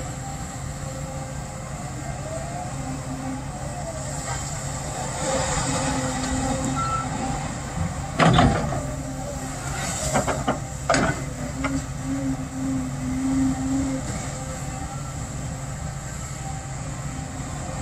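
Diesel engine of a Cat hydraulic excavator running steadily, with hydraulic whines as the boom and bucket move. A loud crash of clay and rock dumped into the steel bed of a dump truck comes about halfway through, followed by a few more clattering impacts a couple of seconds later.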